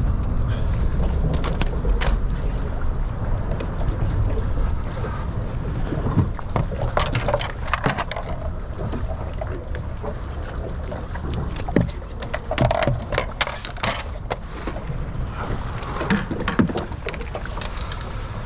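Wind rumbling on the microphone, with scattered sharp clicks and knocks from about six seconds in.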